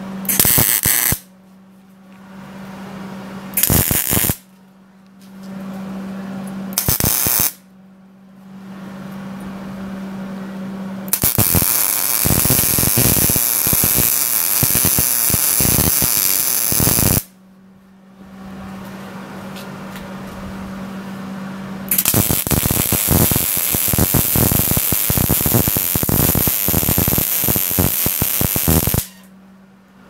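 Electric arc welding on a steel bracket: three short crackling tack welds in the first eight seconds, then two longer beads of about six and seven seconds. A steady low hum fills the pauses between welds.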